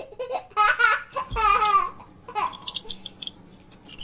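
A voice laughing and babbling for the first two seconds or so, then a few quick, sharp metallic clicks about three seconds in from a toy handcuff's ratchet being worked.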